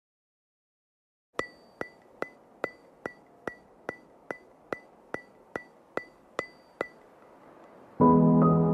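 Background music: a run of evenly spaced clock-like ticks, a little over two a second, each with a brief bright ring, starting about a second and a half in; near the end soft sustained synth and piano music comes in.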